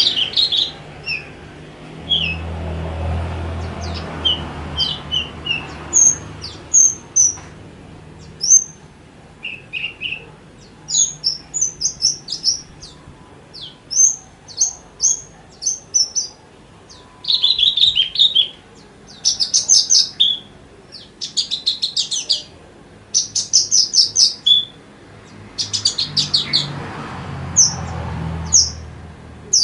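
Horsfield's bush lark (branjangan) singing: a fast stream of short chirps and whistled notes broken by rapid buzzy trills, with only very short pauses between phrases. A low rumble runs underneath a couple of seconds in and again near the end.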